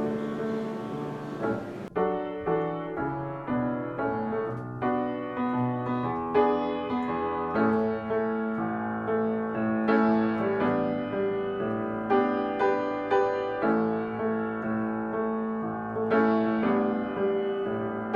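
Background piano music, slow single notes and chords, each struck and left to ring out. For about the first two seconds a hiss runs under it, then cuts off suddenly, leaving the piano alone.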